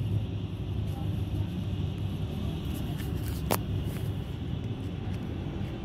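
Steady low rumble of city traffic, with a single sharp click a little past halfway through.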